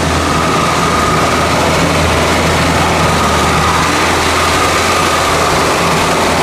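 Heavy off-road truck's engine running steadily under load as it pushes through deep mud.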